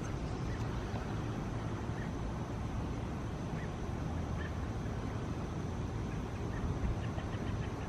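Steady outdoor night background: an even hiss with a low hum, and a few faint, short chirps scattered through it.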